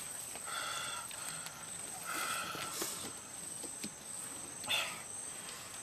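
Outdoor bush ambience: a steady high-pitched insect drone, with short rustling noises about once a second and one louder rustle near the end.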